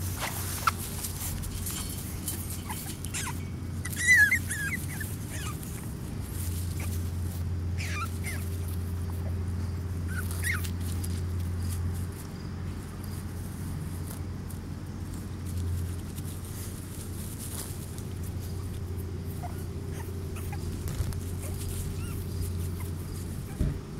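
Eight-week-old Boston Terrier puppies whimpering now and then: a few short, wavering high whines, the loudest about four seconds in, over a steady low hum.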